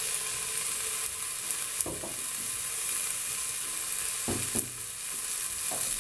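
Diced tomato tipped from a plastic tub into an aluminium pressure cooker, with a few short knocks and rustles of the tub and pot over a steady high hiss.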